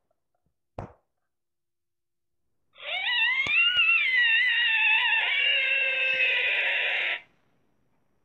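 Cartoon character vocal sound effect: a high-pitched, wavering, squealing voice lasting about four seconds, starting about three seconds in and cutting off abruptly. A short blip comes just before the first second.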